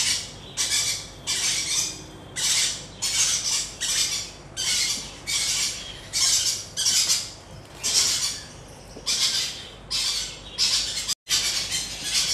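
A hand-fed baby parrot chick giving harsh, squawking begging calls over and over, about one and a half a second, typical of a chick calling for food during syringe feeding. The sound cuts out for a moment near the end.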